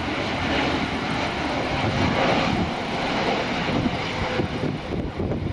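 Jet engines of an airliner on landing approach: a steady rushing roar, a little stronger around the middle.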